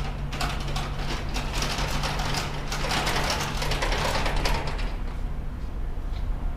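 Heavy machine engine running steadily, with a dense metallic clatter and rattling over it, loudest around the middle.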